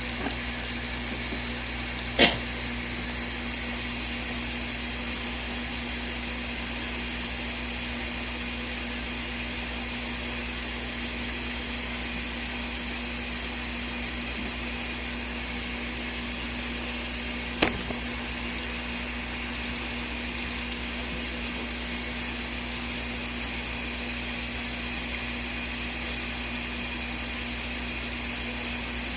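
Small RV washing machine running its wash cycle: a steady motor hum, with a sharp click about two seconds in and another past the middle.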